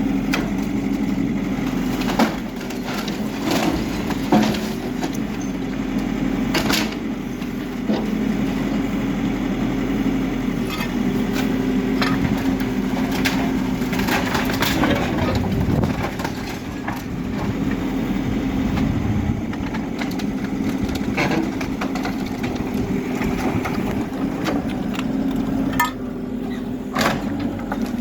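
Backhoe loader's diesel engine running steadily under work while the machine breaks up a building, with repeated sharp cracks and crunches of splintering wood and rubble over the engine.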